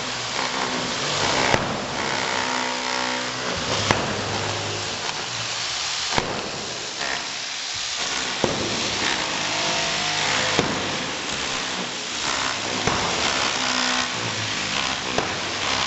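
Concrete being broken up: an electric demolition hammer chattering against a concrete slab, with a pitched motor hum in stretches. Sharp knocks land about every two seconds throughout.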